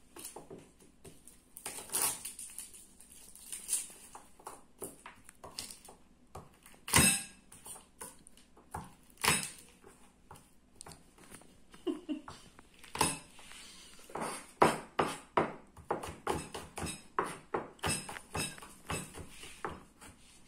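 Kitchen knife chopping garlic on a plastic cutting board: sharp taps, scattered at first, then a quicker, steady run of chops, about two or three a second, in the second half.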